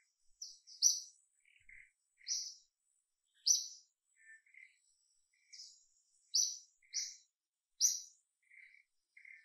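Small birds chirping: short, high, sharp notes at irregular intervals, about a dozen in all. Under them runs a faint, steady, high insect trill.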